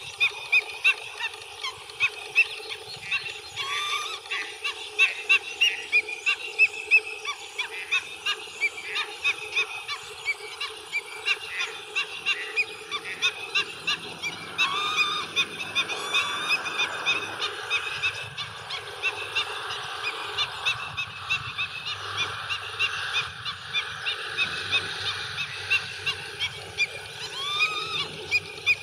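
A chorus of birds calling over and over, short harsh honking calls several a second, with a few louder rising calls standing out now and then.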